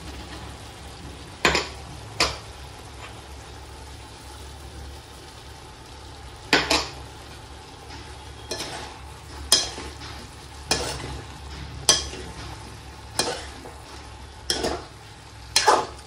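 A spatula stirring vegetables in a cooking pan, scraping and knocking against the pan about ten times at uneven intervals, over a steady low background hum.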